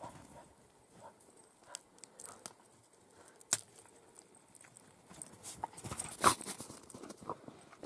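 A dog giving short barks, the loudest about six seconds in, among scattered small clicks and knocks.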